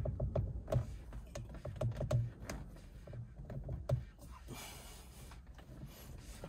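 Irregular metallic clicks and small knocks from a socket wrench on a car's steering-wheel centre bolt as it is strained against the very tight bolt, thinning out after about four seconds, with a brief hiss a little past halfway.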